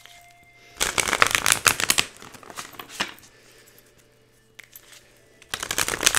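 A deck of cards shuffled by hand: two bursts of rapid flicking and clicking, about a second in and again near the end.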